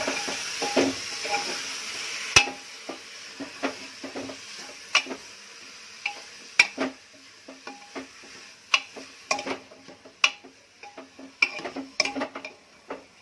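A spoon stirring grated bottle gourd and chana dal in a pressure cooker, knocking and scraping irregularly against the metal pot, each knock ringing briefly. A sizzling hiss from the hot masala is heard over the first couple of seconds.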